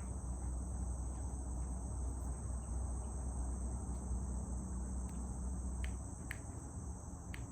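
Steady high-pitched chorus of insects with the low rumble of distant highway traffic under it; the rumble eases about six seconds in, and a few sharp clicks sound near the end.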